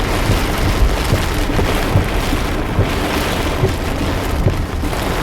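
Heavy rain and storm wind beating on a car driving through a severe thunderstorm: a steady loud rush with irregular low thumps.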